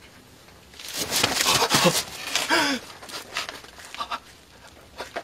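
A person's loud, wavering vocal outburst lasting about two seconds, starting about a second in, followed by a few small knocks.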